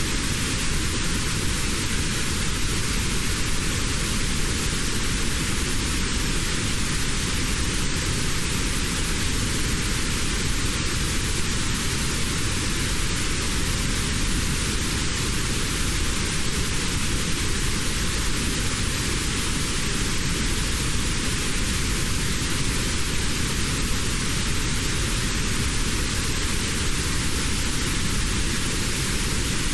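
Steady synthetic white noise with a narrow band of middle pitches cut out: a notched noise used for tinnitus relief.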